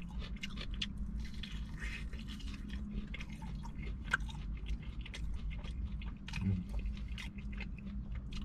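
Close-miked chewing of food, with many small, wet mouth clicks and crunches scattered through, over a steady low hum.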